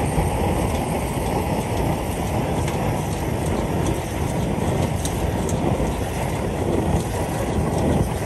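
Sears and Roebuck de luxe flame sprayer, a kerosene-fired burner, running at full burn. Its preheated coil is vaporizing the fuel, and the flame makes a steady, unbroken rushing noise.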